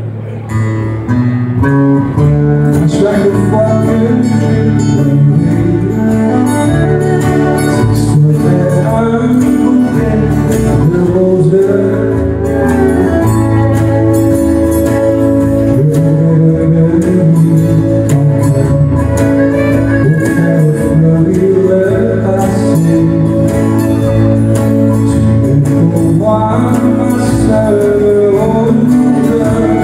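Live country-and-western music: several acoustic guitars strummed together, with a man singing over them.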